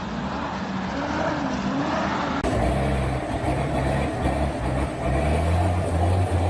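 Engines of heavy vehicles or machinery running. About two seconds in the sound cuts abruptly to a louder, deeper, steady engine note.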